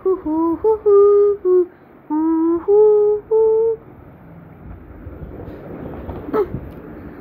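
A child humming a short tune in held notes of varying pitch for the first four seconds. After that comes a low rushing noise with a single click about six seconds in.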